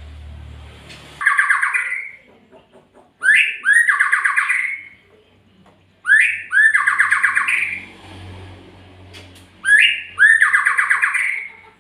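Murai (Copsychus songbird) calling: four loud phrases a few seconds apart, each a quick rising whistle running into a fast, harsh rattling trill of about a second and a half.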